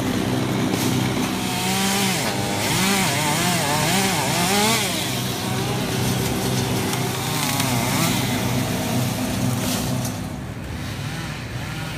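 Chainsaw running while cutting tree limbs, its engine pitch repeatedly rising and falling as it revs and slows under load. It gets quieter about ten seconds in.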